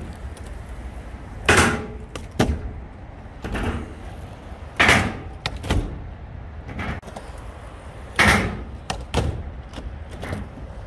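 A surfskate board clacking and slapping against a skatepark ramp: three loud clacks about three seconds apart, with lighter knocks between them over a low rumble of rolling wheels.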